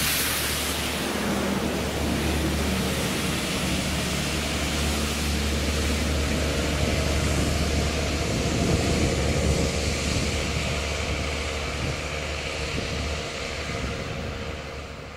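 Track-cleaning train running through behind a diesel locomotive: a steady low engine drone under loud wheel and rail noise with a steady hiss, fading away over the last couple of seconds as it recedes.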